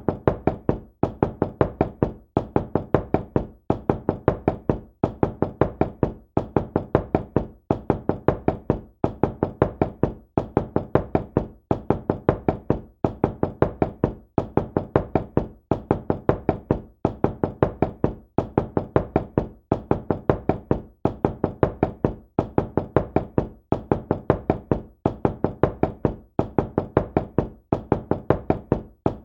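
Knocking on a door, repeated without a break: quick clusters of several raps, each cluster followed by a short pause, over and over at an even pace.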